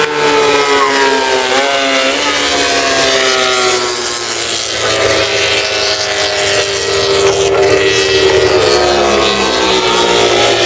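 Racing motorcycle engines running at high revs on the circuit. Their pitch slides slowly downward, with quick shifts about two seconds in.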